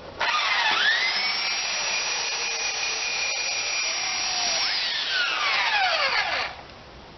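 Electric power tool motor switched on, spinning up to a steady high whine within about a second, running a few seconds, then winding down in pitch and stopping near the end.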